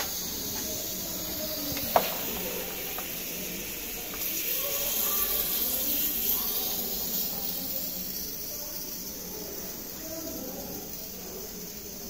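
Refrigerant gas hissing steadily through a manifold gauge set and hoses into a refrigerator's low side while it is charged a little at a time, louder for a few seconds in the middle. A sharp click about two seconds in.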